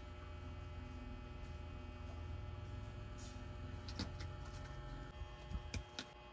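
Steady low electrical hum, with a few light clicks and taps of small tools and parts being handled on a workbench, mostly in the second half.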